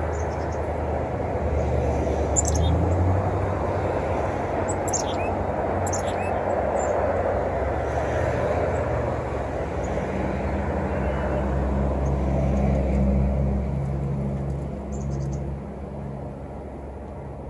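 Low, steady rumble of a passing vehicle's engine with a humming note in the second half, fading near the end. A few short, high bird chirps sound over it about two, five, six and fifteen seconds in.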